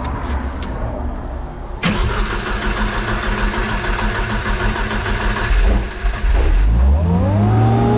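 An engine starting: a sudden start about two seconds in, a low rumble, then a rise in pitch near the end that settles into a steady run.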